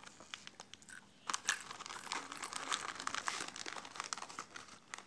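Plastic snack wrapper crinkling and crackling as it is handled and opened by hand: a few scattered crackles at first, then a dense run of crinkling from about a second and a half in.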